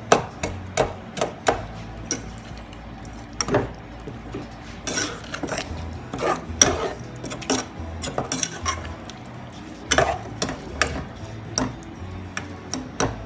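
Steel ladle stirring a thick tomato masala in a saucepan, making irregular clinks, knocks and scrapes against the pan's sides and bottom.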